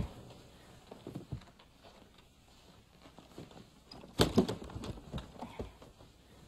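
Quiet clicks and knocks of a travelling trunk being unlatched and its lid opened, with a louder clatter about four seconds in.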